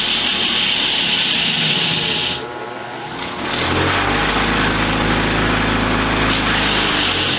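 Motor-driven wire wheel running and scrubbing against a vise part, a steady abrasive hiss over the motor's hum. About two and a half seconds in the scrubbing eases for about a second, then bites again.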